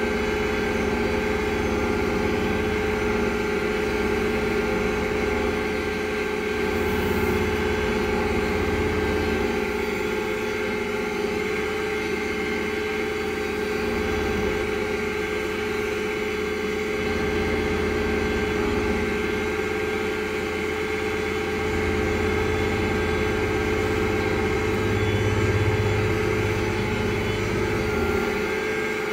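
Versatile 365 tractor's Cummins diesel engine running steadily under light load, heard from inside the cab while the tractor drives slowly, with a steady whine over the low engine note.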